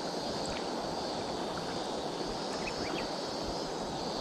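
Steady rush of flowing river water, with a few faint short high chirps about two to three seconds in.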